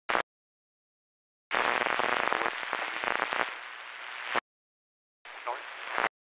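Two-way radio transmissions cutting in and out. There is a brief click at the start, then about three seconds of loud, harsh static and crackle, and near the end a shorter burst. Each stops dead as the transmission drops.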